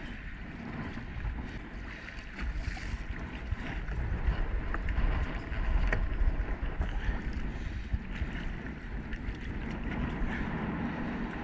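Wind noise on the microphone over choppy water lapping around a small kayak, with a few light knocks.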